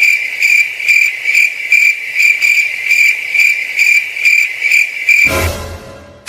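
Cricket-chirping sound effect: a steady high trill pulsing about two and a half times a second. A little after five seconds it gives way to a brief whoosh with a low rumble that fades out.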